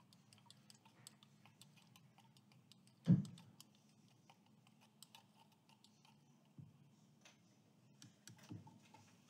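A thin stick stirring soapy water in a small plastic cup, clicking lightly and irregularly against the cup's sides as the bubbles are worked up. About three seconds in there is one louder dull thump.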